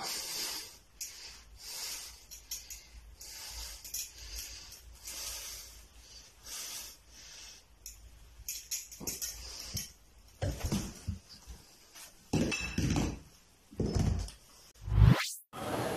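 Ceramic plates and a glass bottle knocking, clattering and thudding onto a hard floor as a balance on them gives way, with several loud knocks in the last few seconds. Before that there is softer, irregular handling noise. A short rising whoosh cuts off sharply near the end.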